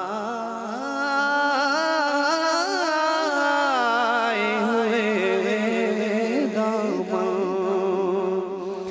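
A man's solo voice singing a naat (Urdu devotional song) without instruments: one long, held, ornamented melismatic line that swells and climbs in pitch about a second in, then breaks off near the end.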